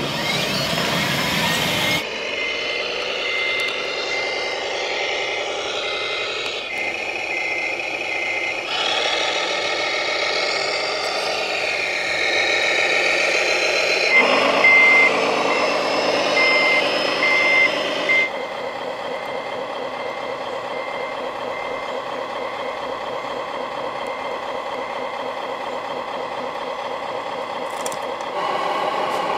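Radio-controlled model trucks with sound modules: simulated truck engine running, with an evenly repeating electronic reversing beeper through roughly the first half or more; the engine sound shifts abruptly several times.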